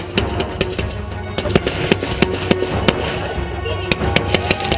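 Consumer fireworks firing in quick succession: rapid, irregular bangs and pops, several a second, as shots launch and burst, with a whistle coming in near the end.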